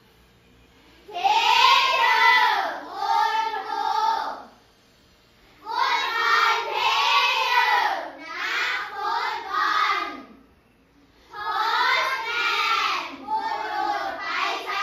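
A class of young children reading words aloud together in a sing-song chorus, three times, with short pauses between.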